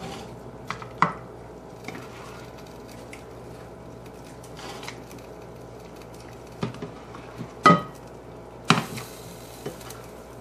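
A serving spoon scooping chicken and gravy filling out of a skillet and knocking against the pan and a casserole dish: scattered clicks and knocks, the two loudest about three-quarters of the way through. A faint steady hum lies underneath.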